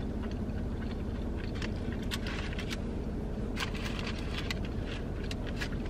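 Steady low hum inside a parked car's cabin, with scattered soft clicks and rustles in the middle stretch as a plastic fork and paper-lined takeout trays are handled.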